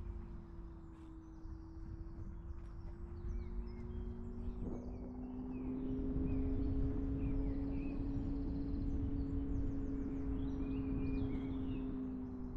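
Car driving: low road rumble under a steady hum that rises slightly in pitch and grows louder about five seconds in as the car speeds up, then eases back near the end. Birds chirp over it.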